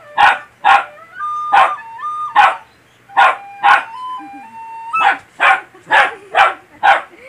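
Small dog barking again and again at a recorder being played, the barks coming faster in the last couple of seconds. Under the barks the recorder holds a few plain notes, stepping up and down between them. The dog is barking in fright at the instrument's sound.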